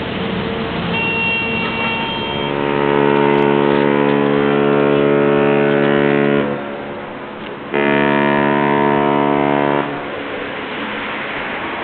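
Queen Mary 2's typhon ship's horns, powered by compressed air, sounding a deep steady blast of about four seconds, then after a short pause a second blast of about two seconds.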